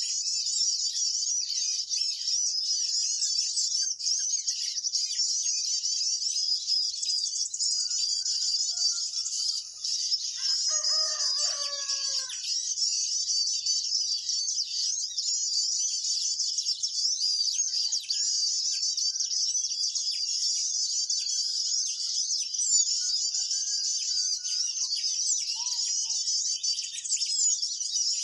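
Dense, continuous high-pitched chirping of many small birds, with a rooster crowing once about ten seconds in.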